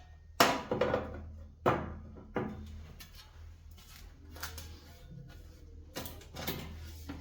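Snowblower parts being handled and fitted: a series of sharp knocks and clicks, the loudest about half a second in, over a steady low hum.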